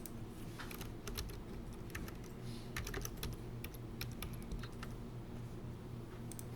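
Irregular clicking of a computer keyboard and mouse, a couple of dozen sharp clicks in quick, uneven runs, over a faint steady low hum.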